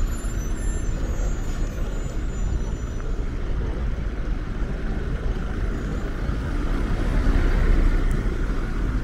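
City street traffic: vehicle engines and tyres running steadily, swelling louder about seven to eight seconds in as a vehicle passes close.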